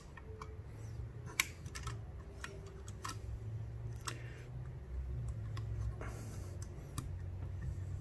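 Scattered light clicks and taps of an Intel Xeon CPU being set down and pressed into its LGA 2011-3 socket, over a low steady hum.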